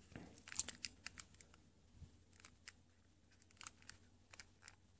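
Faint, irregular clicks and taps of a handheld infrared remote control's buttons being pressed one after another.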